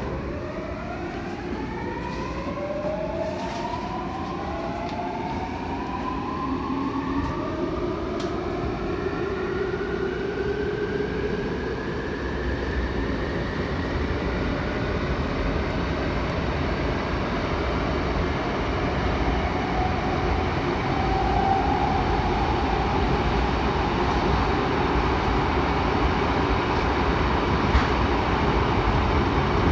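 Seoul Metro 7000 series subway train pulling away: the traction motor drive gives a whine of several tones rising together in pitch over the first dozen seconds as the train gathers speed. Under it, the rumble of the wheels on the rails grows steadily louder.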